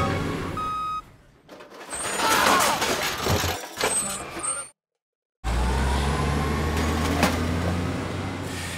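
Dump truck sound effects: a last reversing beep over the engine, then a loud clattering rush of rubble tipping out of the raised bed. After a sudden break, the truck's engine runs on in a steady low rumble.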